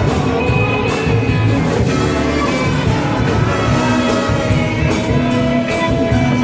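Live music from a band playing: many held instrument notes over a full low end, with sharp hits now and then.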